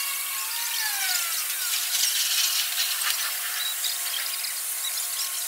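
Vintage streetcar's steel wheels squealing and grinding against the rails as it rounds a tight curve. A high scraping hiss runs throughout, with a couple of squeals sliding down in pitch about a second in.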